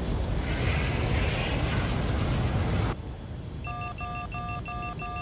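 A steady rushing roar of the spacecraft flying through the clouds, which cuts off abruptly about three seconds in. Soon after, a cockpit warning alarm starts: a rapid electronic beeping, about three to four beeps a second, warning of an incoming missile lock.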